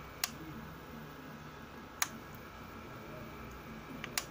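Ultrasonic humidifier running with its water churning: a steady hiss, with sharp clicks about a quarter second in, about two seconds in, and two close together near the end.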